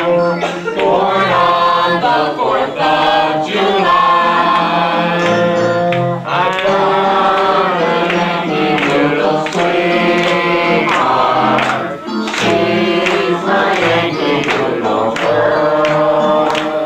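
Slide trombone playing a melody of held and moving notes, some with vibrato, over electric keyboard accompaniment.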